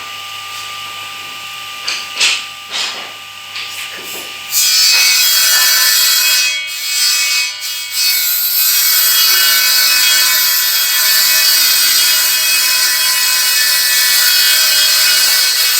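Angle grinder at work: a few short, lighter passes, then about four and a half seconds in it bites in hard with a loud, steady, high-pitched grinding whine that briefly falters twice and runs on until it cuts off just before the end.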